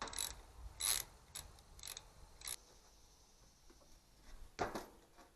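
Metal starter parts and hand tools clinking and scraping as a tractor's gear-reduction starter is taken apart: a handful of irregular short clicks, the loudest a little over four and a half seconds in.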